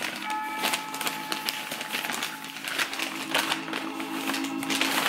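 Paper wrapping rustling and crinkling in a run of quick rustles as a parcel is handled and opened.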